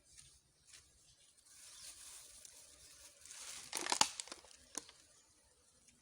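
Crinkling and rustling handling noise, building to a cluster of sharp clicks and crackles about four seconds in.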